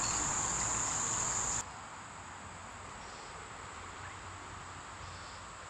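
Steady, high-pitched insect trilling, such as chirping crickets, with no words over it. About a second and a half in it drops abruptly to a fainter level and then carries on steadily.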